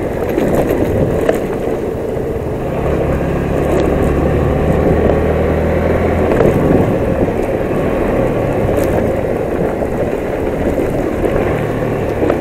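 Yamaha MT-15's small single-cylinder engine running under way as the motorcycle is ridden over a rough dirt track. The engine note shifts a few times with the throttle, over a steady rough rumble from the ride.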